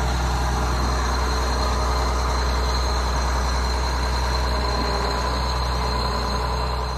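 John Deere 7720 Titan II combine's six-cylinder diesel engine running steadily as the combine drives across the yard.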